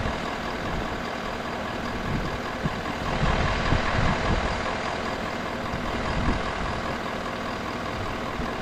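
A vehicle engine running steadily at idle, briefly louder for a second or two in the middle.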